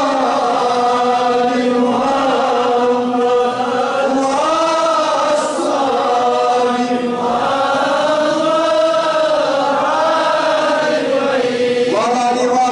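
A man's voice chanting a supplication in a slow melodic line, long held notes gliding up and down, with short breaks between phrases.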